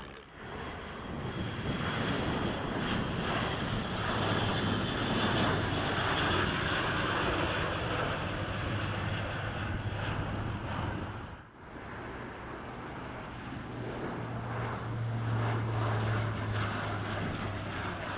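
Airbus A400M Atlas's four turboprops at take-off power as it lifts off, a steady drone with a low hum. About 11 seconds in, the sound cuts to an Alenia C-27J Spartan's twin turboprops passing low, a similar steady drone that swells toward the end.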